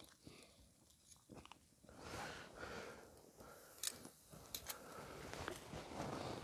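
Campfire cooking sounds: faint crackling that grows louder about two seconds in, with a few sharp snaps.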